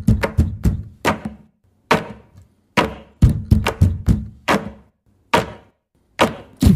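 Deep drum strikes from a song's percussion intro, played in quick groups of hits separated by short pauses.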